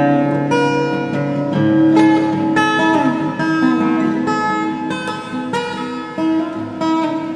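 Background music: strummed acoustic guitar with plucked notes.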